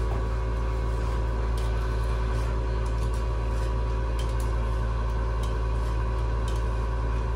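Steady low mechanical hum with a few constant tones over it and a few faint clicks.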